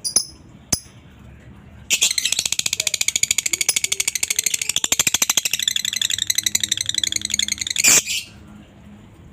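Lovebird giving a long 'ngekek' chatter: after a couple of single high chirps, a fast, unbroken run of high-pitched notes goes on for about six seconds and then stops abruptly.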